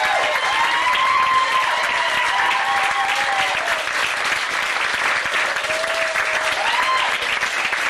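Audience applauding steadily, dense clapping with a few voices heard over it.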